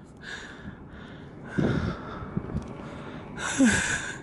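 A person breathing heavily close to the microphone: a few short breaths and exhales, the loudest about three and a half seconds in, a sigh with a brief falling voiced note.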